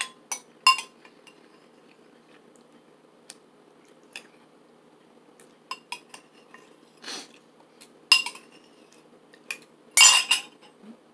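Metal spoon clinking and scraping against its dish while scooping up pieces of potato from a chunky soup. There are a few sharp clinks at the start, scattered light taps through the middle, and a louder cluster of clinks near the end.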